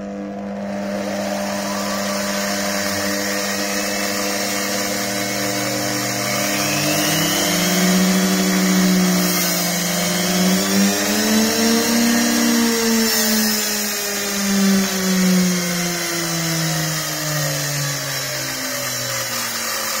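Washing machine universal motor running unloaded on a speed controller, a loud steady whine. Its pitch climbs as the speed rises, peaks about twelve seconds in, then falls slowly as the motor is slowed.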